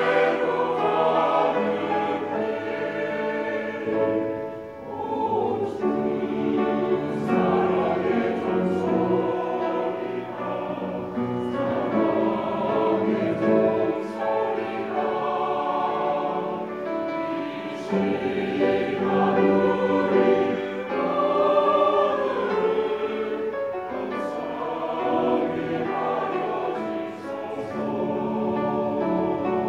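A church choir of married couples, men and women together, singing a hymn.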